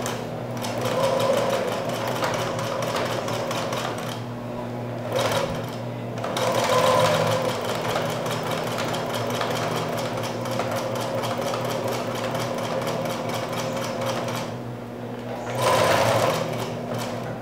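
Electric domestic sewing machine stitching a hem in cotton dish-towel fabric: steady motor hum under rapid needle strokes, stopping briefly about four seconds in and again near the end.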